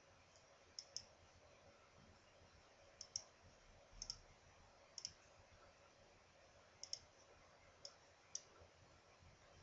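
Faint computer mouse button clicks, about ten sharp clicks spaced irregularly, many in quick pairs, as chess pieces are moved on an on-screen board.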